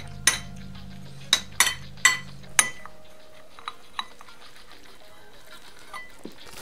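Cutlery clinking against a dish five times in quick succession, then a few fainter clinks, over background music.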